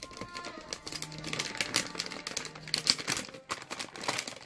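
Plastic and foil zip-lock packaging crinkling irregularly as hands handle it, over background music.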